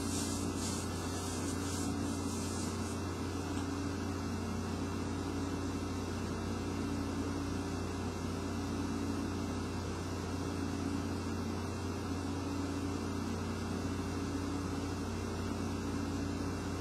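Steady low hum with a faint hiss of room background noise, unchanging throughout, with no distinct event.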